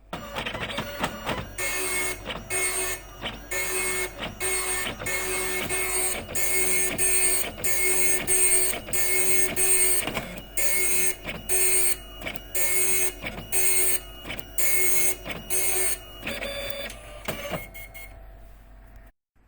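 Epson dot matrix printer printing: the print head rasps across the paper in repeated short passes, a little under two a second, each carrying a steady mid-pitched tone. Near the end the passes stop and a few softer, irregular mechanism sounds follow.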